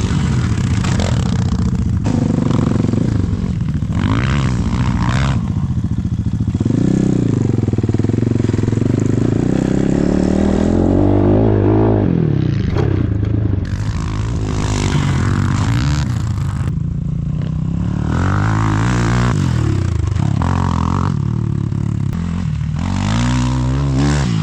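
Enduro dirt bike engine running under load, its revs rising and falling again and again.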